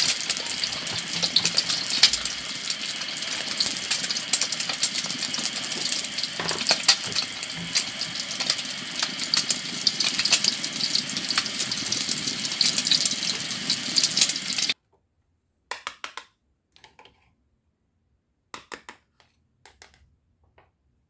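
Frying-pan sizzle sound effect: a steady crackling hiss that cuts off suddenly about fifteen seconds in. After it come a few light clicks of plastic toy pieces being handled.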